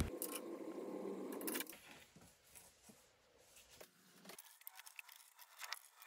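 Near silence with a few faint, light clicks in the last two seconds: small assembly bolts and hardware being handled.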